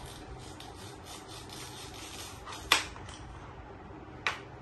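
A toy fruit being cut apart with a toy knife: steady rasping and scraping, with two sharp knocks, one a little past the middle and one near the end.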